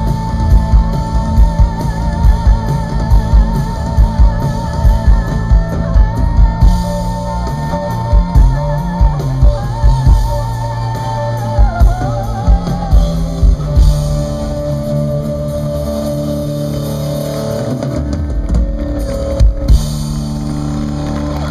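Live rock band playing: a female lead vocal holds long notes with vibrato over electric guitar, bass and drum kit. About two-thirds of the way through the drums drop away, leaving sustained guitar and bass chords, with a couple of last drum hits near the end.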